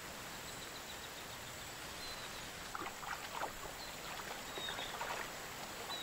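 Steady rain falling on open water and vegetation, an even hiss, with a few faint, short, high chirps over it.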